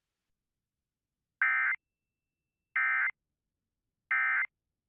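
Emergency Alert System end-of-message (EOM) SAME data bursts: three short, identical bursts of buzzy digital data tone about a second apart, the code that marks the end of the alert.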